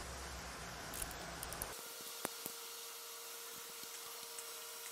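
A few faint metal clicks and taps from a ratchet and a connecting-rod cap being handled on a GM LT1 V8's crankshaft. They sit over a low steady hum that drops out about two seconds in, leaving a thin steady whine.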